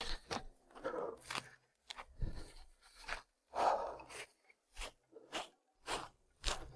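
Footsteps on the forest floor, about two steps a second, each a short crunch of varying loudness.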